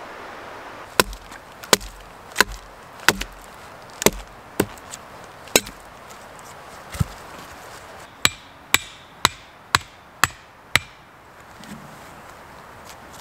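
A hatchet striking wood in a series of sharp knocks. About seven blows come roughly two-thirds of a second apart, then a single blow, then six quicker blows about half a second apart, as a wooden stake is shaped and driven.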